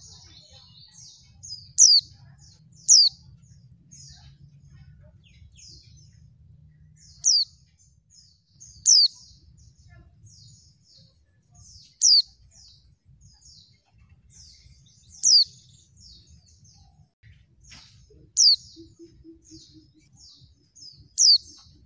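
Female white-eye (pleci) calling: sharp, high, downward-slurred call notes, about eight of them, spaced one to three seconds apart, with softer twittering notes in between. These calls are used to provoke male white-eyes into answering and singing.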